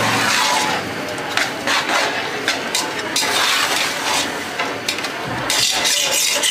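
Metal spatula scraping and clinking against a large metal pot, in irregular repeated strokes, as semolina is stirred while it roasts.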